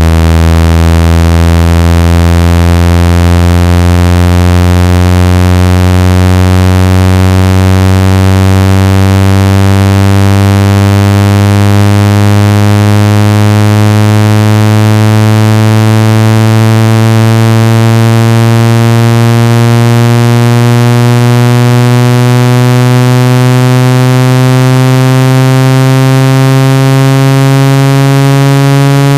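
Synthetic water-ejection tone for clearing water from a phone or earphone speaker: a loud, low buzzing tone full of overtones that slowly rises in pitch.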